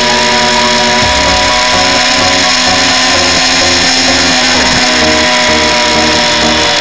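Yamaha motorcycle engine running at road speed, recorded from a camera mounted low on the bike's fairing: a loud, steady engine note mixed with wind and tyre rush.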